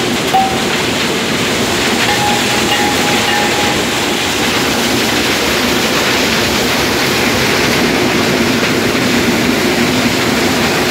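Conveyor rollers running: a steady, loud, even mechanical clatter and rumble of the machine in operation.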